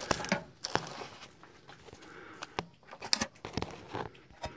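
Handling noise: scattered light clicks and crinkly rustling at irregular intervals.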